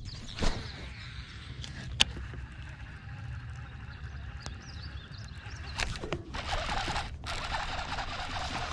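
A steady low rumble with a few sharp clicks, then from about six seconds in a steady splashing of water as a hooked bass is brought up to the boat.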